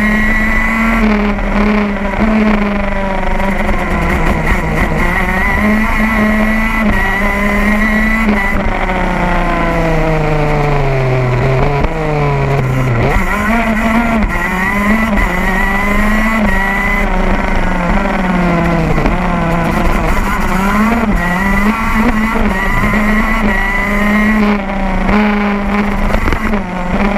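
125 cc two-stroke engine of a KZ2 gearbox kart, heard from on board, running hard and revving up and down over and over. About eight seconds in its pitch falls in one long glide until about thirteen seconds in, then climbs back up.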